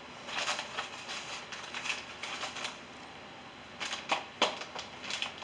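Small metal acorn nuts clicking and rattling as they are handled, in several short bursts of light taps.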